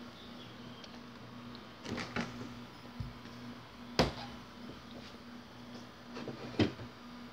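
Knocks and clicks from a handheld phone being carried and things being handled: two knocks close together about two seconds in, a sharp loud click about four seconds in, and another knock near the end, over a faint steady hum.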